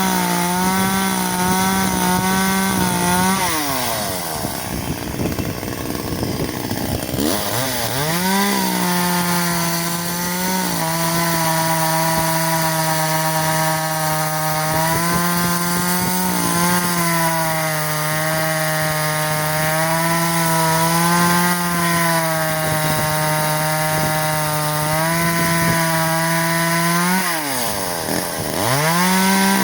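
Echo CS-370 two-stroke chainsaw running at high revs, cutting wood, its pitch sagging a little under load. It falls back to low revs about four seconds in, then revs up again, and drops and revs up once more near the end.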